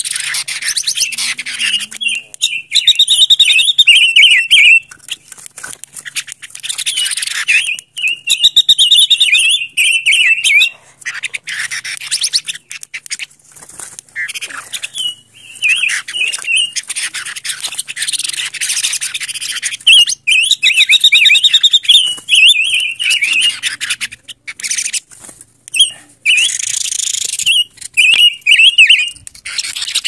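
Silver-eared mesia singing: short, rapid warbled phrases, about five of them, repeated every few seconds.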